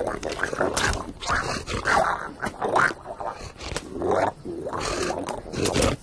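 Wordless cartoon animal voices: a string of short vocal sounds about a second apart, with a few sharp clicks between them.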